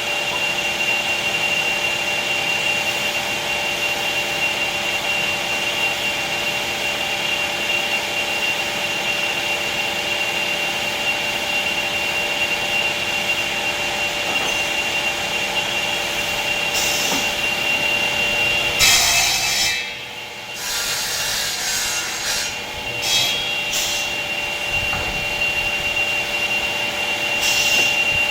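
Electric woodworking machine running with a steady high whine while cutting into wood with a rasping sound. About two-thirds of the way through, the whine breaks off and the noise dips for a few seconds, then it picks up again.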